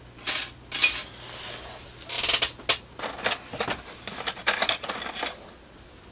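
Hard plastic model-kit parts handled off-camera: a run of irregular clicks, rattles and rustles. A small bell rings thinly three times, likely the cat's collar bell.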